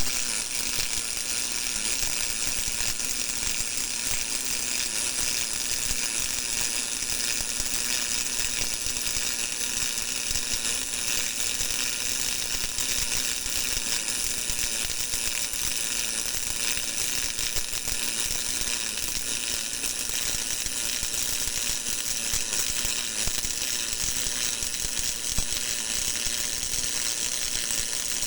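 GMAW (MIG) welding arc crackling steadily in one long continuous run.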